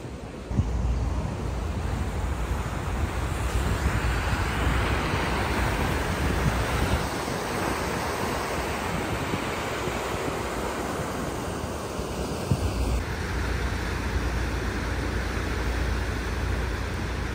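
Wind rushing and buffeting the microphone, a steady low rumble with a broad rush of air over it, which jumps louder about half a second in.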